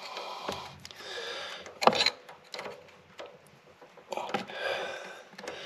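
Hand-work on a golf cart engine: scattered clicks, rustling and handling noises of parts and tools, with one sharp knock about two seconds in.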